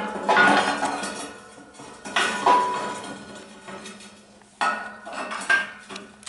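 Heavy steel axle parts clanking together as they are handled and set in place: a series of sharp metallic knocks, each ringing briefly, the loudest at the start and others about two and four and a half seconds in.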